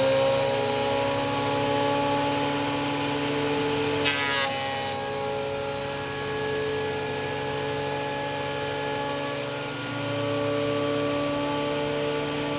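Bauer benchtop thickness planer running with a steady whine. About four seconds in, a brief rattle comes as the board meets the cutterhead, and the motor's pitch drops as it labours through a full-width 12-inch cut in poplar; the owner says such a cut "sucks the life out of it".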